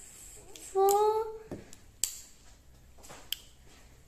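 A child's drawn-out, wordless hum rising slightly in pitch about a second in, with a handful of sharp clicks from small objects knocked together in her hands.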